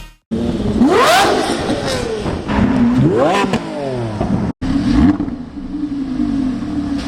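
Supercar engine revved hard twice, its pitch climbing sharply each time. After a sudden cut about four and a half seconds in, it runs at a steadier pitch.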